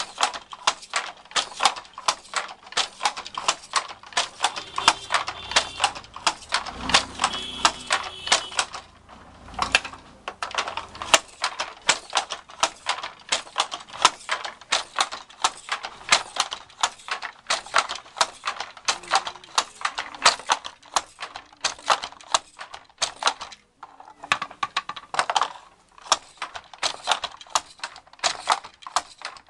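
Wooden handloom clacking in a fast, steady rhythm as the shuttle is thrown and the beater knocks each pick into the cloth, several knocks a second. It breaks off briefly twice, about nine and twenty-four seconds in.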